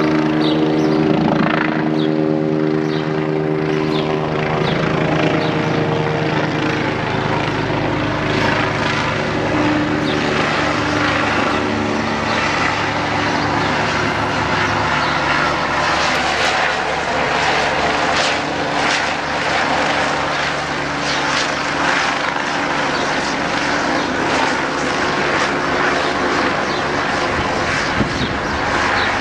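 Eurocopter EC145 police helicopter flying low overhead, its turbine and rotor sound steady and loud. For roughly the first dozen seconds a steady humming tone stands out, then it gives way to a noisier rotor rush with faint regular pulsing as the helicopter passes close overhead.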